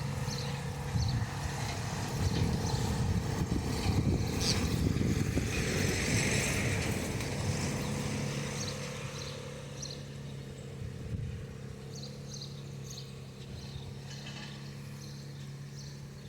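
An engine running steadily at an even pitch under a low, uneven rumble; the sound eases off about halfway through.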